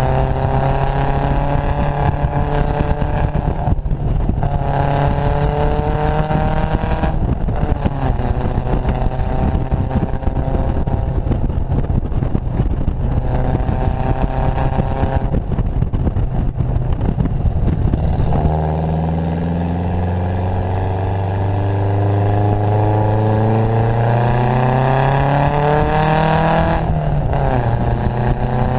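Datsun Fairlady roadster's four-cylinder engine pulling hard, its note climbing in long pulls broken by brief dips, with wind rushing past the open car. About two-thirds of the way through it eases to a lower, steadier cruise that climbs slowly, with one more dip near the end.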